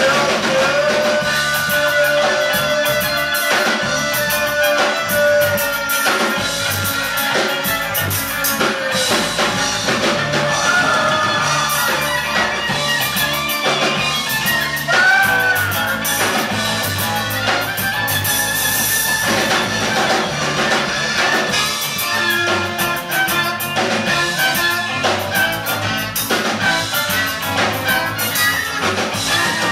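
Live rock band playing on stage: fiddle, electric guitar and drum kit, with long held melody notes over a steady drum beat.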